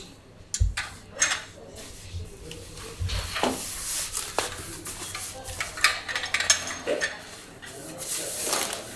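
Hard metal objects clinking and clattering, the way hand tools and loose parts do when they are picked up and set down, with two low thumps, one early and one about three seconds in.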